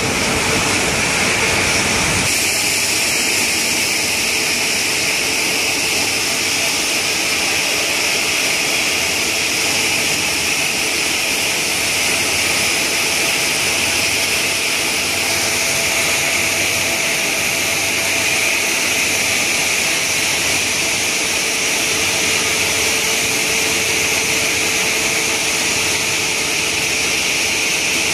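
Granite block-cutting saw running steadily, a continuous hissing mechanical whine as it saws the stone wet. The sound changes abruptly about two seconds in, then holds even.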